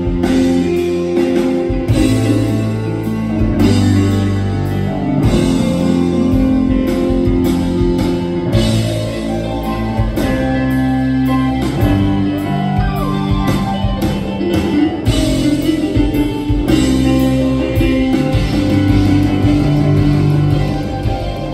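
Live rock music: an electric bass playing deep held notes under keyboard chords, with some percussive strokes.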